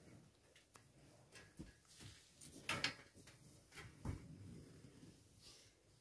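Faint rustling of bedding and light knocks as someone moves on a bunk bed, with one louder rustle a little under three seconds in and a dull thump about a second later.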